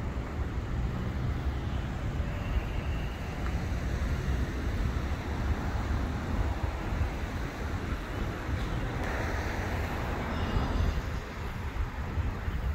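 Steady road traffic rumble, with a car passing about nine seconds in.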